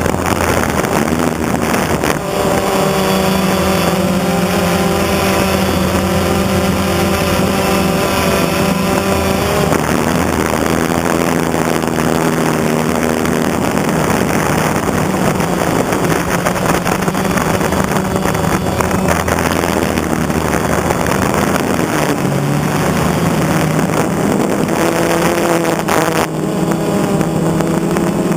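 Small quadcopter drone's electric motors and propellers buzzing steadily as it flies. The pitch of the buzz shifts several times as it climbs and manoeuvres, with wind noise on the microphone.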